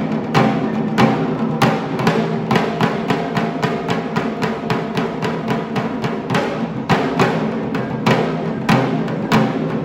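Large barrel drums beaten in a fast, uneven pattern of sharp strokes, over a steady droning tone.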